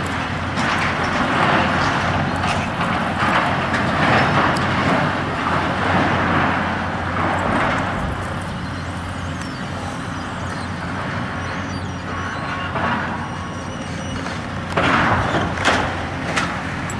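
Cat tracked excavator with a demolition grab running steadily while it tears at a building, with the crashing and scraping of metal sheeting and brick rubble being pulled down. Two sharp, loud crashes of falling debris come near the end.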